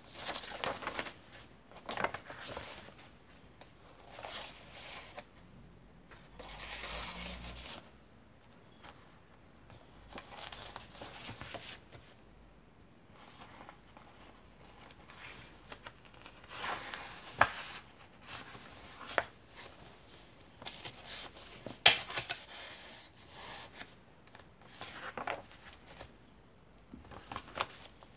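Vintage paper pages of a thick handmade junk journal turned one after another: rustling and crinkling with each turn, a few sharp ticks as pages fall, and short quiet gaps between turns.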